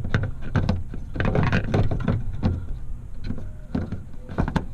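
Plastic headlight bulb cover being fitted by hand onto the headlight housing of a Mercedes GL and twisted clockwise: irregular scraping and clicking of plastic on plastic, close up, with a couple of sharper clicks near the end.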